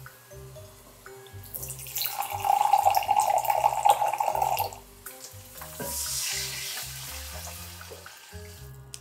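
A thin stream of water runs into a glass drinking glass for about three seconds, making a steady ringing rush. A little later the water is poured from the glass into a stainless steel pan of kimchi, a softer splashing pour that fades away near the end.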